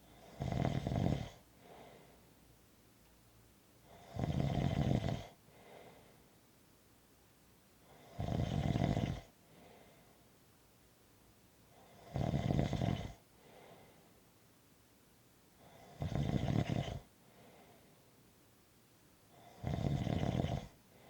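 Slow, regular snoring: six snores about four seconds apart, each lasting about a second and followed by a fainter breath.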